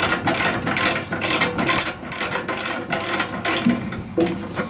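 Ratchet wrench clicking in rapid, uneven strokes as a screw is run in on a mini excavator's sheet-metal panel.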